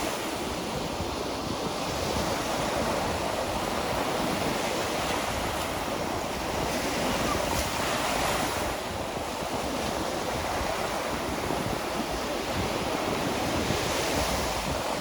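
Gulf of Mexico surf washing steadily onto a sandy beach, with wind buffeting the microphone.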